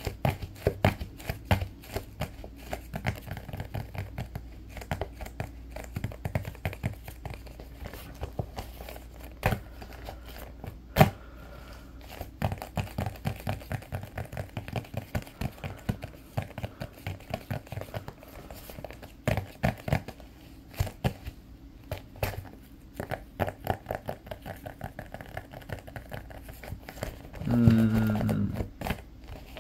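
Fingertips and nails tapping and scratching rapidly on the panels of a small soccer ball, a dense run of light taps with a few sharper, louder ones. Near the end a short hummed voice sound comes in.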